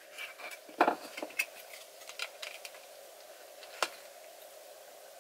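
Small plastic clicks and taps as clear plastic wings are pressed onto the pegs of a Fujimi praying-mantis model kit: a cluster of light clicks about a second in, a few more a little later, and one sharper click near four seconds in.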